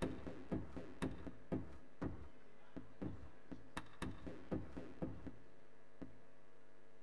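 Sparse live electronic music played from a button-grid controller and laptop: short clicky percussive hits about twice a second over a low steady drone, the hits thinning out about five seconds in.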